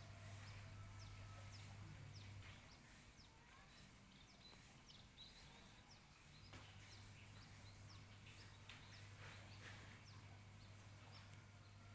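Faint, quick high-pitched bird chirps, many short falling notes scattered throughout, over a low steady hum that cuts out for a few seconds about two seconds in and then returns.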